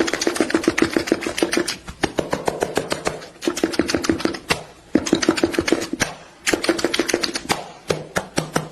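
HVAC blower making a rapid flapping, slapping clatter, about ten slaps a second in bursts of a second or so with short breaks, over a hum. Typical of damaged blower fan blades or debris caught in the blower.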